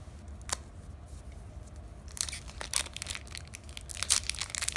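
Foil trading-card booster pack being crinkled and torn open by hand: a single crackle about half a second in, then a run of sharp crinkling rips from about two seconds in.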